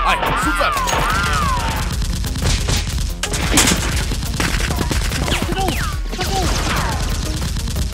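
Rapid volleys of dubbed-in gunfire sound effects over action background music, with a warbling tone in the first couple of seconds.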